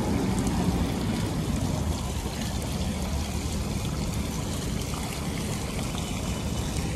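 Fountain water splashing into its basin: a steady rushing noise that slowly grows fainter.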